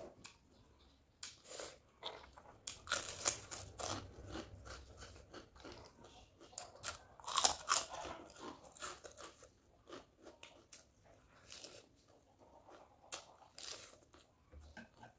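Close-up chewing and crunching of fresh lettuce leaf with noodles: clusters of crisp crackling bites, busiest around three to four seconds in and again around seven to eight seconds in.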